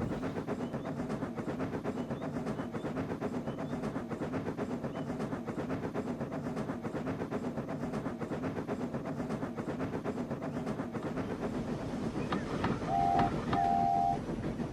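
Steam locomotive running along the line with a steady, rapid rhythm of wheel and chuff beats, then two short whistle toots near the end.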